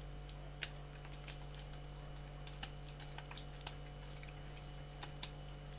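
Faint scattered clicks and soft taps of hands shaping a block of homemade butter, over a steady low electrical hum.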